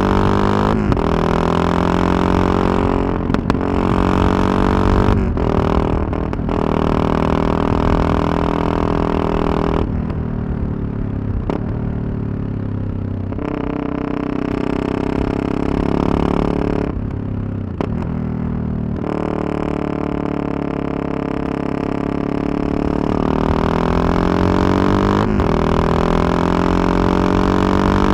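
Yamaha MT-03 660's single-cylinder engine and exhaust under way, heard from the rider's position. Its note rises and falls with the throttle and breaks off briefly several times, as at gear changes. It settles into a steadier, quieter cruise through the middle and builds again near the end.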